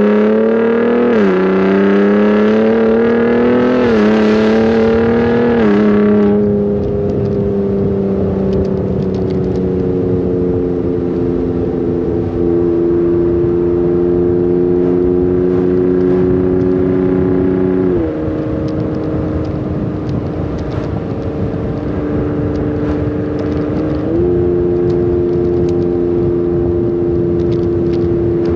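2018 Ford Raptor's 3.5-litre twin-turbo V6 exhaust, running through an SPD Trombone resonator delete and a Borla Atak muffler, heard from the back of the truck while driving. At the start it accelerates, its pitch climbing and dropping back at three quick upshifts. It then settles into a steady cruising tone, with two more gear changes later on.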